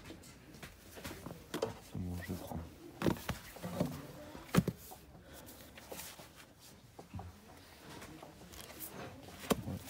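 Old books being handled: pages turning and books being shifted, with sharp knocks and clicks, the loudest about halfway through. Indistinct voices come in between.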